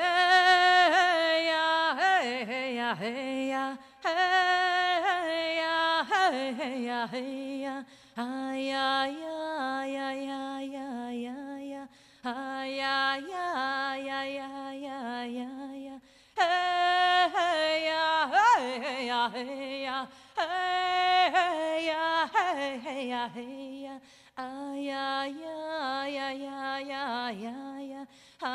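A woman's solo voice singing an unaccompanied melody in phrases of a few seconds, with swooping slides between notes and short breaths between phrases.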